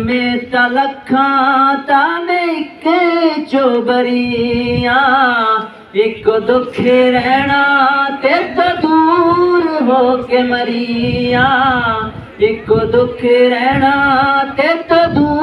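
A young man singing a song into a handheld microphone without instruments, one voice with long held notes that waver and bend.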